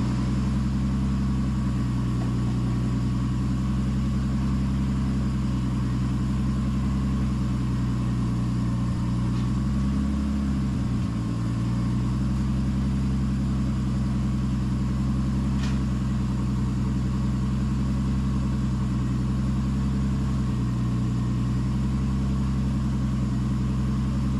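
Nissan Skyline's engine idling steadily, its pitch dipping briefly and recovering about ten seconds in.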